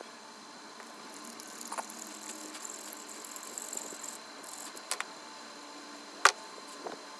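Scratchy rustling of a bare copper wire being handled, then a few sharp metallic clicks as pliers work it, the loudest about six seconds in.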